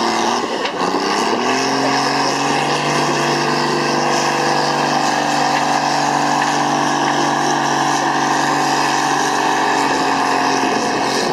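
Tractor's diesel engine running hard under heavy load while dragging a weight-transfer sled in a tractor pull. Its pitch sags in the first second or so, climbs back and then holds at a steady, strained note.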